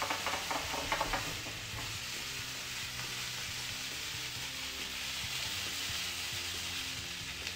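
Red pepper strips, shallot and courgette dice sizzling in olive oil in a frying pan, with a spatula clicking and scraping through them in about the first second, then a steady sizzle.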